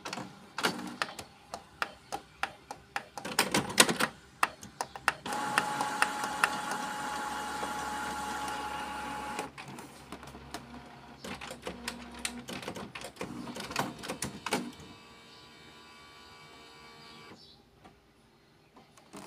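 Canon Maxify MB2340 inkjet printer running its mechanism after new ink cartridges have been fitted: runs of clicks and clatters, a steady motor whine for about four seconds in the middle, more clicking, then a quieter hum that stops near the end.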